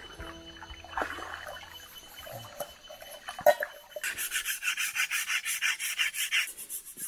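Machete blade scraped quickly back and forth across a tree trunk's bark, a fast rasping at about seven strokes a second starting about four seconds in, easing off near the end.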